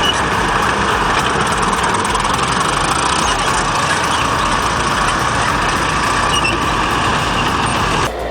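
Heavy machine running under load, a loud steady mechanical noise that cuts off abruptly near the end.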